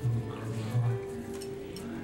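Music with long held notes.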